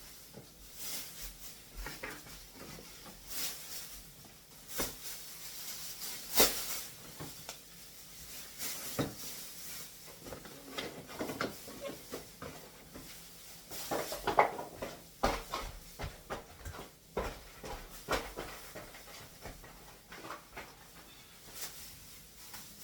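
Irregular clicks, knocks and rustles of groceries and packaging being handled, with a sharper knock about six seconds in and another near the middle.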